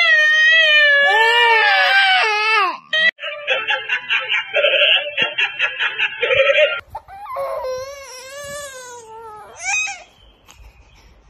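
Crying from a baby and from a dancing cactus toy that repeats the cry back in a higher, sped-up voice, then a few seconds of the toy's electronic song with a quick, choppy beat, and another wailing cry that rises sharply at its end about ten seconds in.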